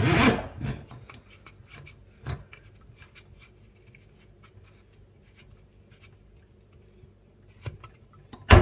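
A pull-out kitchen faucet's spray head and spring-wrapped metal hose being handled and drawn out of the spout, scraping and clicking against the metal. A louder scrape comes right at the start and another just before the end, with faint clicks in between.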